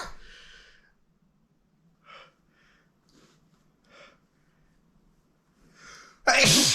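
Short, halting breaths and sniffles from someone with a cold, building up toward a sneeze that bursts out loudly near the end.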